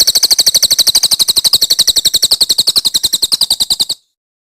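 A songbird's rapid trill: sharp high notes repeated evenly at about eleven a second, held for about four seconds and then cutting off abruptly.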